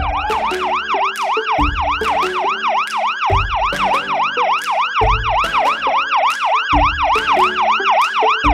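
Siren sound effect in a fast yelp, its pitch rising and falling about three or four times a second, over background music with a steady beat.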